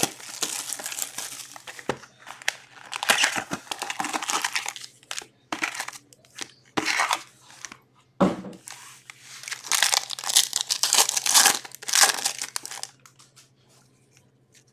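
Metal Universe hockey-card packs being torn open, the wrappers tearing and crinkling in a series of irregular rustling bursts.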